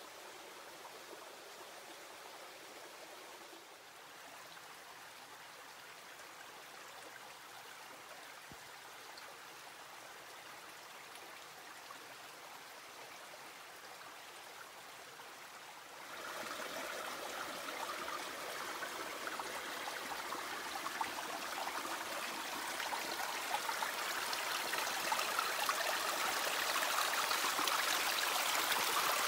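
South Fork Skokomish River water flowing with a steady rush, fairly faint at first. About sixteen seconds in it jumps abruptly louder and then keeps swelling louder.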